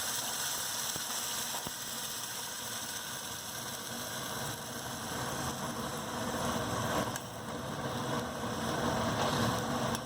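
Cauliflower-leaf paste cooking in hot mustard oil in a pan: a steady sizzling and bubbling over a constant faint hum, growing a little fuller near the end.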